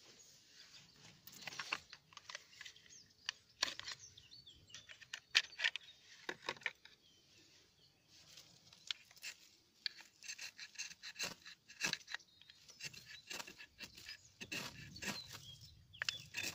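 Ferro rod scraped with a knife spine, a run of short, irregular scraping strikes throwing sparks onto a tuft of lichen tinder to light a fire.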